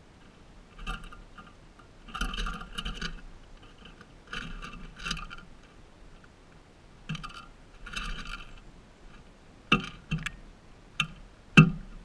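A crested pigeon pecking through loose sunflower seeds close to the microphone: short bursts of rattling, scraping seeds and husks, then a few sharp pecks or taps near the end.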